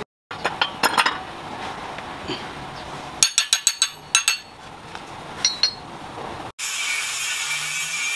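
Small steel parts (nuts, washers and a wrench) clinking sharply against a steel vise, in a few quick clusters of ringing clinks. About six and a half seconds in, an angle grinder with a thin cutting disc starts cutting through the chrome steel shock absorber piston rod: a steady, loud grinding.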